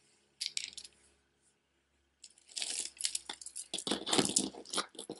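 Costume jewelry beads and metal chains clicking and rattling as it is handled: a brief clatter about half a second in as a beaded bracelet is set down, then continuous jangling from about two seconds in as a layered chain-and-bead necklace is lifted from the pile.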